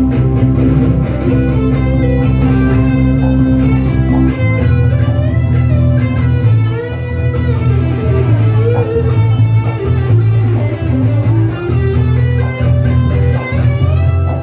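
Amplified live band music with electric guitars and bass guitar. A low chord is held for about the first four seconds, then the bass line starts moving under the melody.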